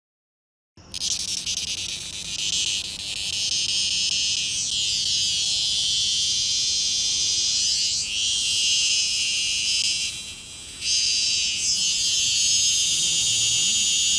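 Loud, dense chorus of insects: a steady, shrill high-pitched buzzing that starts suddenly about a second in and dips briefly about ten seconds in.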